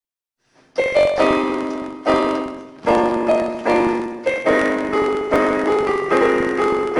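Piano music: after a brief silence, chords are struck again and again, each ringing out and fading before the next.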